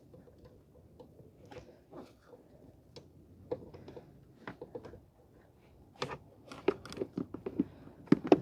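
Hand tools clicking and knocking against metal parts under a truck's hood while the A/C expansion valve's fasteners are worked on. The clicks come irregularly, sparse at first, then quicker and louder from about six seconds in.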